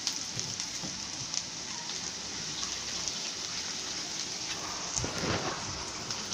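Diced vegetables frying in oil in an aluminium pot, a steady sizzling hiss with small scattered pops and crackles. There is a brief louder burst of noise about five seconds in.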